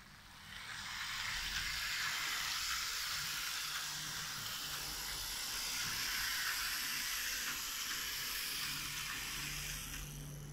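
Lima H0 model of a DB class 169 electric locomotive, with a modified Lima G motor, running on the track with its coaches: a steady whirring noise from the motor and the wheels on the rails. It rises about half a second in and fades near the end.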